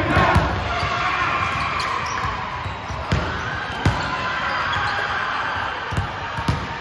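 Basketball bouncing on a court during a game: a few separate, irregularly spaced thuds, with voices in the background.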